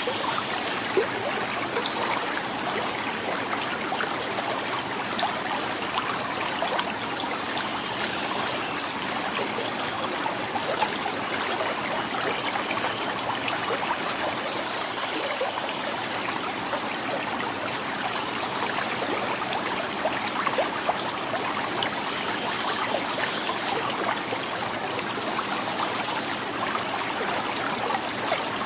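Shallow river flowing steadily, water gurgling and splashing over rocks with many small pops and trickles.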